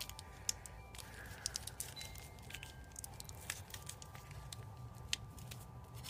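Faint, scattered light clicks and crinkles of a small wrist-pin retaining clip being handled between the fingers over a plastic bag, with a low steady hum underneath.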